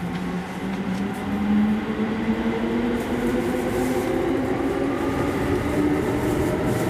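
Electric commuter train heard from the front car: the motors' whine rises steadily in pitch as the train accelerates, over the constant rumble of the wheels on the rails.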